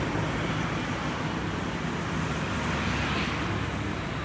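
Steady background road-traffic noise, a low, even rumble with no distinct events.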